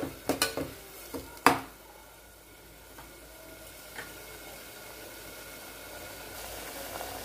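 A metal slotted spoon stirring and knocking against the inside of a pressure cooker, with several sharp clicks in the first second and a half. After that, mint paste and green peas sizzle faintly as they are sautéed in ghee and oil.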